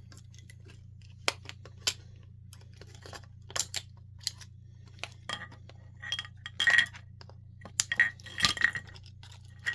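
Small scrap parts and hand tools clicking and clinking as they are handled and set down. Single sharp clicks come every second or so at first, then from about six seconds in thicker clusters of clinks, several with a short metallic ring.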